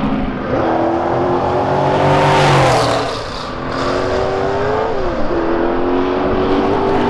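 Formula 5000 racing cars' V8 engines at high revs, the pitch climbing, easing off around three seconds in, then dropping sharply at a gear change about five seconds in before climbing again.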